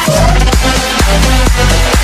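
Electronic dance music with a heavy, steady beat, about two beats a second.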